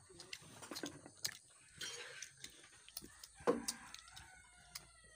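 A rooster crowing, one long drawn-out call starting about three and a half seconds in, over scattered small clicks and smacks of a child eating rice by hand from an enamel plate.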